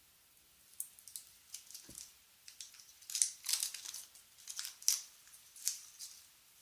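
Hands handling the small plastic parts of a car-alarm key fob case close to the microphone: a run of crinkling rustles and light clicks, with a soft knock about two seconds in.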